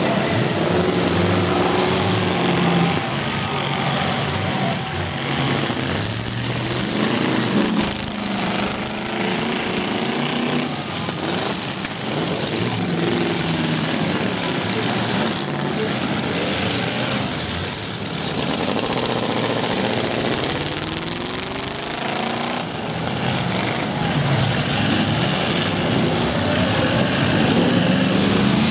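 Several full-size demolition derby cars' engines revving and running at once, their pitch rising and falling, with scattered crashes as cars hit one another.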